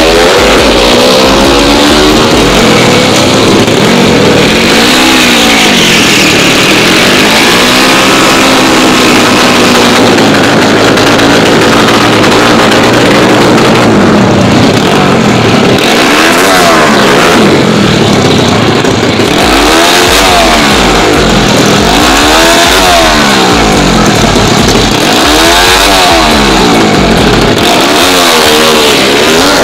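Honda Wave drag motorcycle's horizontal-cylinder engine, built with a 57 mm piston and stock stroke, revving hard over and over while staged at the start line. Each rev climbs and falls back over about two seconds, with a short steadier spell a little before the middle.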